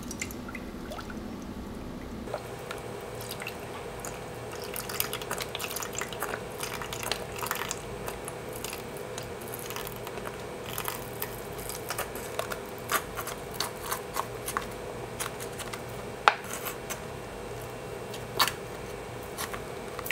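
Thick soup being poured from a carton into a pan, with irregular glugs, plops and drips. A steady low hum comes in about two seconds in.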